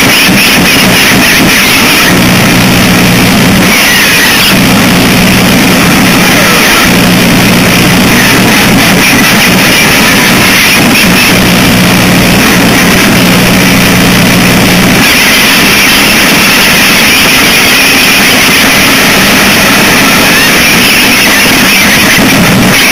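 Harsh noise music: a loud, unbroken wall of static hiss. A low hum cuts in and out in blocks of a few seconds, then drops out about two-thirds of the way through, leaving only the hiss.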